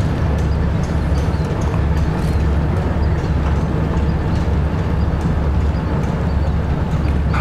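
Tugboat's diesel engine idling, a deep steady rumble with faint light ticks over it.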